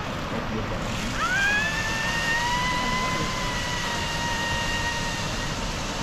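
Steady roar of rushing water from a waterfall. About a second in, a high whine sweeps up quickly, then holds for about four seconds before fading.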